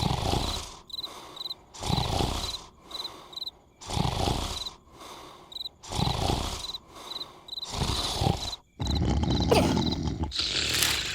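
Cartoon snoring sound effect for a sleeping larva: a loud rasping snore in, then a softer breath out, repeating about every two seconds, with crickets chirping faintly behind. From about nine seconds in, a steadier, busier noise takes over.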